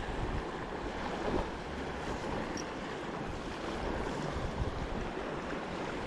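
Fast, shallow river rushing over riffles, a steady wash of water noise, with wind buffeting the microphone and making an uneven low rumble.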